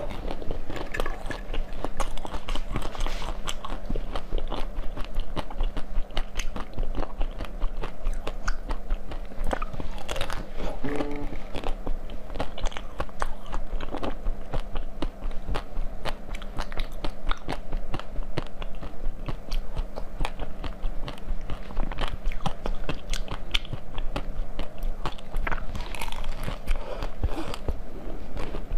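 Close-miked eating: a person biting and chewing crisp food, with a continuous run of irregular crunches and crackles over a steady low hum.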